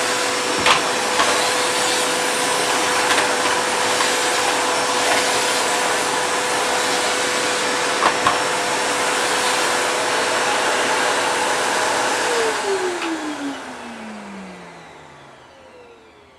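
Numatic James tub vacuum cleaner running with a steady whine, with a few sharp clicks as dirt rattles up the hose. About twelve seconds in it is switched off, and the motor whine falls in pitch as it spins down.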